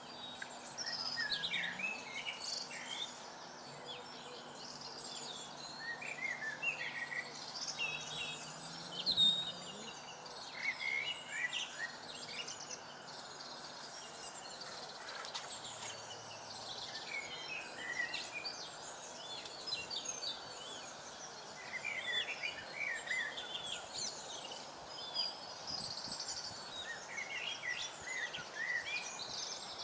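Several small birds singing and chirping in quick, overlapping phrases over a steady background hiss, with a faint low hum in the first third.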